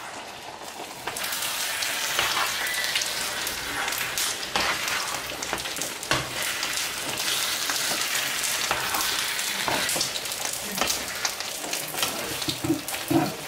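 Minced-meat, potato and carrot filling sizzling in a frying pan while a metal spoon stirs it, with frequent scrapes and taps of the spoon against the pan. The sizzle grows louder about a second in.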